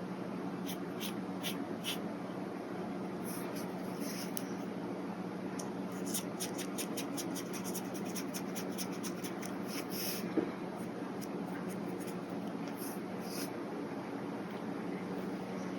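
Brush pen strokes scratching on paper: a few separate strokes, then a quick run of short strokes from about six to ten seconds in.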